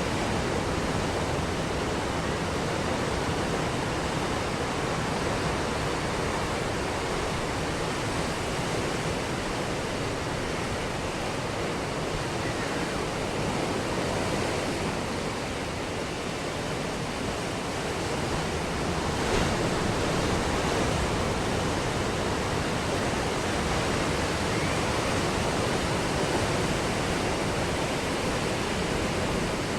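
Ocean surf breaking on a beach: a continuous, even wash of waves with only slight swells in loudness, one a little past halfway.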